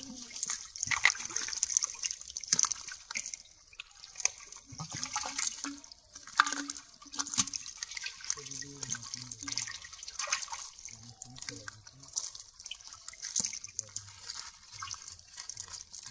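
A wet fishing net and small fish being handled on a plastic tarp: irregular wet crackles, slaps and taps as the mesh is pulled and the fish are picked out, with low voices talking in the background.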